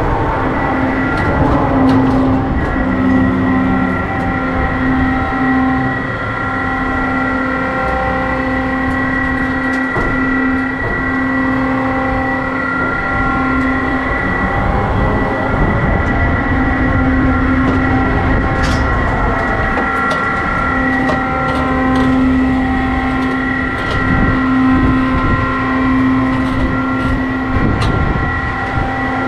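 HUSS Ranger looping ride heard from its gondola as the arm carries it over: a steady mechanical hum and whine at unchanging pitch over a low rumble, with a few sharp clicks.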